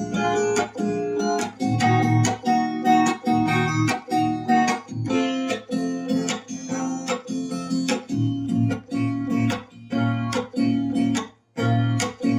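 Acoustic guitar strummed in a steady rhythmic pattern of chords, with no singing. The strumming breaks off briefly near the end, then comes back with one last chord.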